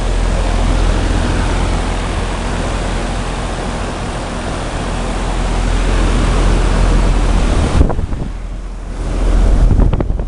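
Outdoor heat pump unit running in heat mode: the condenser fan's airflow makes a loud, steady rush that buffets the microphone, over a low, steady compressor hum. The rush drops sharply about eight seconds in and comes back strongly a second or so later.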